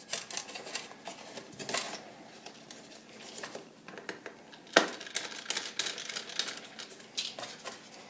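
Scattered plastic clicks and taps as the bottom cover of a Lenovo ThinkPad P50 laptop is pried at with a tool and its snap-in tabs let go; one sharp click, the loudest, comes a little past halfway.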